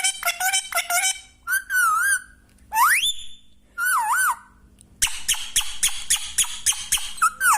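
A pet green parrot whistling and chattering. It gives a quick run of repeated calls, then separate whistles: one wavering, one rising sharply, one warbling. About five seconds in comes another fast burst of chirps, followed by a wavering whistle.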